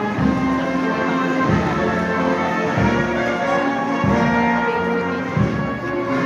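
Church bells ringing together in a Spanish volteo general, the bells swung full circle: many overlapping ringing tones with a deep strike about every second and a half.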